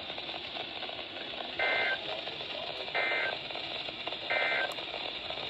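NOAA Weather Radio SAME end-of-message data signal: three short bursts of warbling two-tone digital data, about 1.3 s apart, over steady radio hiss. It marks the end of the broadcast test message.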